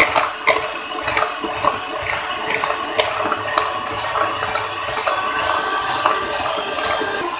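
Electric hand mixer running steadily, its wire beaters whipping eggs, sugar and emulsifier in a plastic bowl, with scattered short clicks over the motor's hum.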